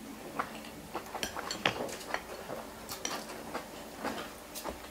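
Metal fork and spoon clinking and scraping against a glass bowl of noodle soup while eating: light, irregular clicks, a few a second.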